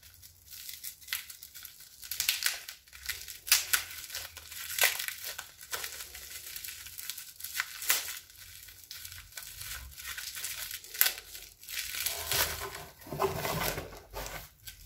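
Bubble wrap being unwrapped by hand, crinkling and crackling in irregular bursts.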